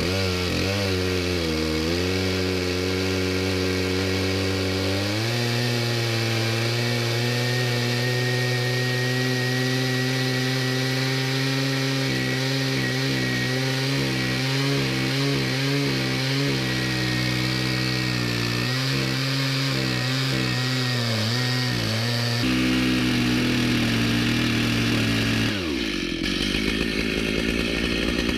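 Chainsaw on an Alaskan mill ripping lengthwise through a deodar cedar trunk, the two-stroke engine running steadily at high revs under load. Its pitch steps up about five seconds in and drops sharply near the end.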